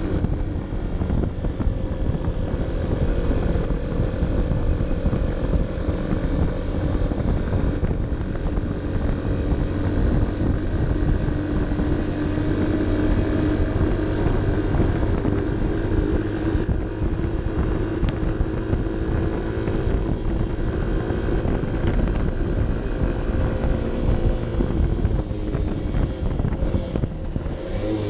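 Honda CB 125 F's small single-cylinder four-stroke engine pulling at steady, fairly high revs under load on a climb, heard onboard, with a low rumble of wind and road underneath.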